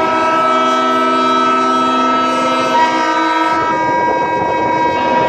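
Ship horns blowing long, steady notes, several tones overlapping in a chord that changes about three seconds in.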